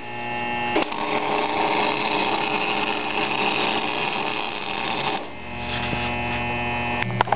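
MIG welder arc sizzling steadily as a bead is run along a crack in a cast-iron exhaust manifold, using 70-grade wire and CO2. It starts about a second in and stops about five seconds in, leaving a steady low hum.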